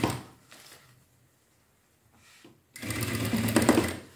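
Sewing machine stitching in short runs: one run stops just after the start, and after a pause of about two and a half seconds another run of about a second starts and stops near the end. It is sewing a one-centimetre seam around the edge of a cotton fabric piece.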